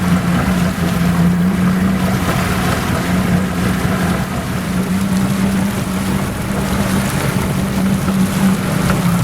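Sailboat's engine running steadily, a constant low drone, with water rushing along the hull and wind over the microphone.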